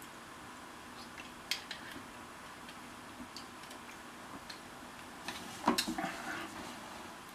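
Utensil scraping and clicking against the inside of an open tin can of pasta as food is scooped out. A few scattered light clicks, then a louder run of scrapes and clinks about five and a half seconds in.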